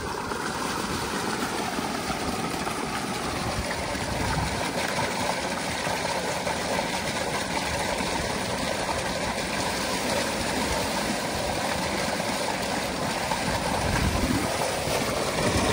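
Tubewell water gushing steadily from an outlet pipe into a concrete tank, a constant rushing splash.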